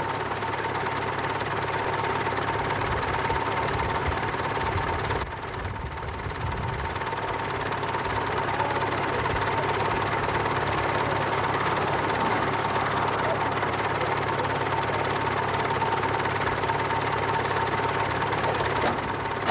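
An engine idling steadily, with a constant high-pitched hum over it.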